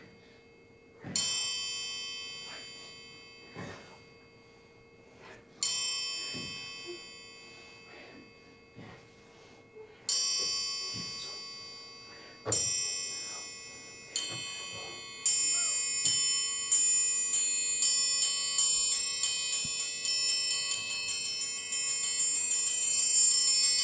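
Performance music of bell-like struck tones, each ringing out and fading slowly. They come singly a few seconds apart at first, then faster and overlapping in the last third, building into a dense shimmer.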